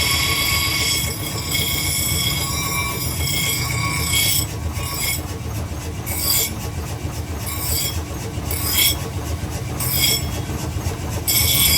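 A motorised tool runs with a low rumble and a high whine of several steady tones. About a third of the way in, the whine begins to cut out, returning in short spurts several times before it comes back fully near the end.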